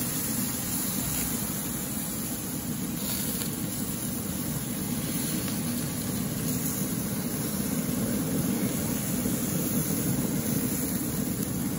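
Steady mechanical whir of an Asmoke AS300 pellet grill's fan running with the grill set to 500 degrees, with a constant hiss over it.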